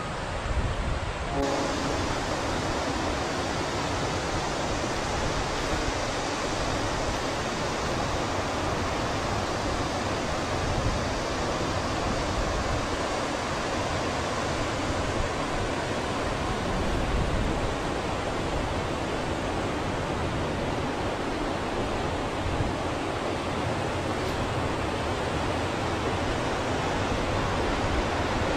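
Valley stream rushing over rocks: a steady, even roar of flowing water.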